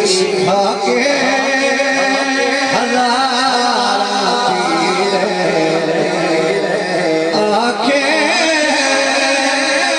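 Male voice singing a long, wavering, drawn-out melodic line of a Punjabi religious kalam. New phrases start about a second in and again near the end.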